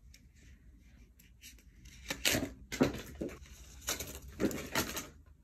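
Playing cards fumbled and sprayed out of the hands. About two seconds in comes a quick, irregular run of flicks and slaps as the cards scatter.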